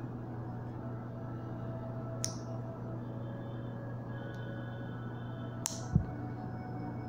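Plastic clothespins being handled and clipped onto fingers: two sharp plastic clicks, about two seconds in and again near the end, the second followed at once by a dull low thump. A steady low hum runs underneath.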